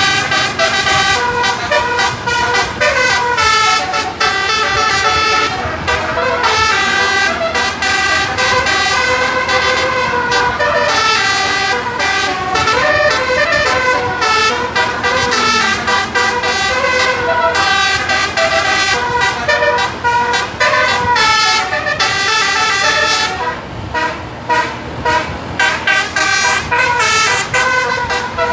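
A bus's 18-note telolet horn playing a long, continuous run of melody, several horn tones sounding together and stepping up and down in pitch from note to note.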